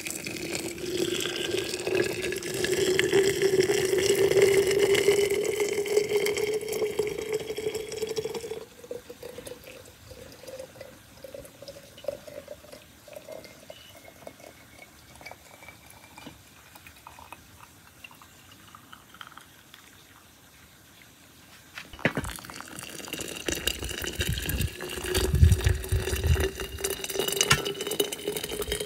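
Water poured from an enamel kettle into a large glass jar of plums and sugar, the pitch rising steadily as the jar fills. The pour stops about a third of the way in, and a second jar is filled the same way near the end.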